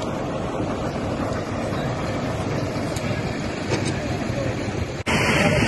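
Steady rumbling outdoor noise, like vehicles and engines running, with indistinct voices in it. About five seconds in, it cuts abruptly to louder, harsher noise.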